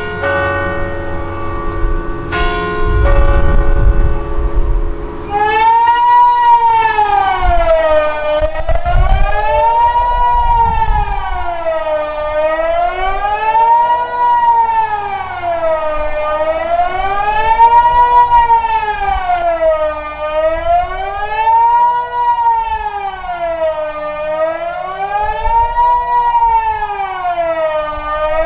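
Kockum Sonic Delta electronic civil-defence siren sounding the Swiss general-alarm signal, a steady wail rising and falling in pitch about once every four seconds, starting about five seconds in. Before it, a bell rings twice and dies away slowly.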